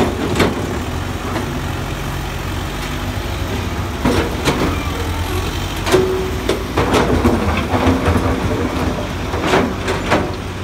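Diesel engine of an old dump truck loaded with quarry stone running steadily as it drives slowly over rough ground, with the steel tipper body and its load of rock clanking and knocking at irregular moments.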